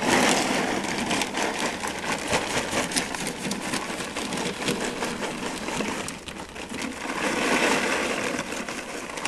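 ReptiBark fir-bark chips pouring from a plastic bag onto the glass floor of a terrarium: a dense, continuous rattle of many small chips landing. It eases briefly about six seconds in, then picks up again.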